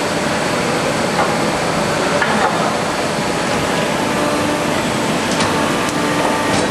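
Steady hissing noise of a running CNC sheet-metal machine as a metal sheet is slid across its table, with a few light knocks.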